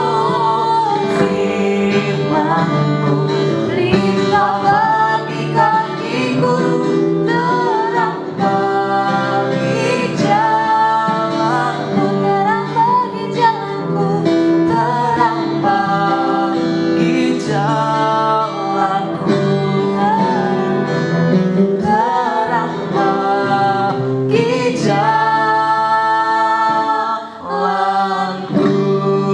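A children's worship song: a female voice singing over guitar accompaniment.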